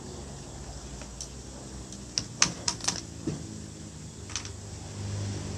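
A handful of sharp, irregular clicks, bunched together about two to three seconds in, over a low steady background hum.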